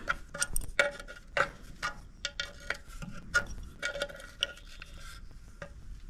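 Adjustable wrench clinking on a hay baler's gearbox oil level plug as the plug is screwed back in and tightened: a run of light, irregular metallic clicks and taps.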